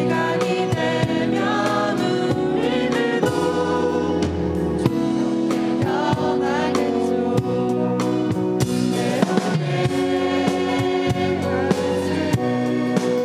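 Mixed choir of young men and women singing a Korean gospel song.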